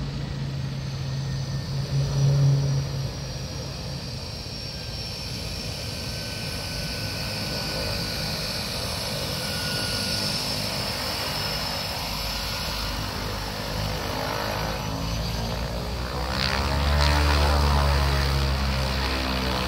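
Air Tractor spray plane's turboprop engine running as the plane taxis, a steady high whine over the propeller's drone. About three-quarters of the way through, the plane swings round close by and the low propeller drone swells louder.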